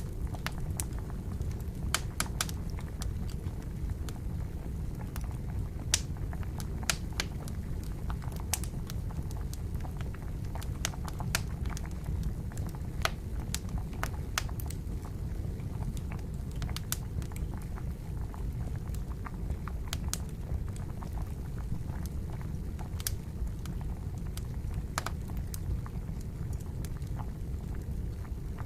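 Campfire wood crackling, with irregular sharp pops scattered throughout, over the steady low rumble of water boiling.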